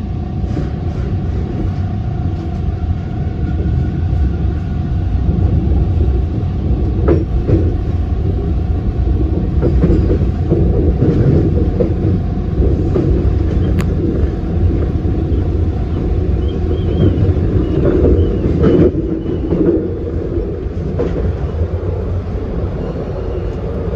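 T1 subway train running through a tunnel, heard from inside at the front: a steady low rumble with scattered sharp clicks from the wheels, and a faint steady whine that fades out about nine seconds in.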